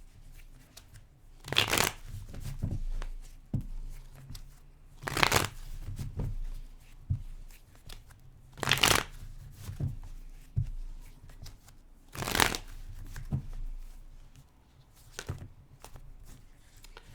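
Tarot cards being shuffled by hand: four brief shuffling bursts about three and a half seconds apart, with light card taps and clicks in between.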